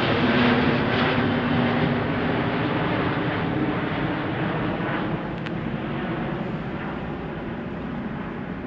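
Jet airliner climbing away after takeoff, its engine noise steady and slowly fading as it moves off.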